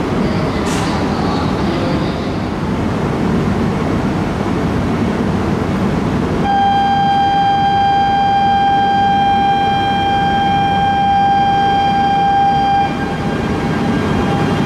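E926 East-i Shinkansen inspection train standing at a station platform with its onboard equipment running as a steady hum and hiss. About six seconds in, a steady high signal tone starts abruptly and sounds loudly for about six seconds, then carries on more faintly as the train begins to pull out.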